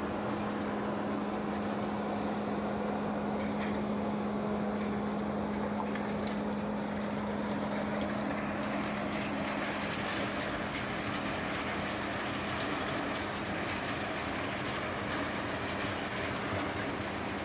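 TAGRM M4800 tracked compost turner running as it works through a windrow of mixed waste: steady machine noise with a low hum that weakens about halfway through.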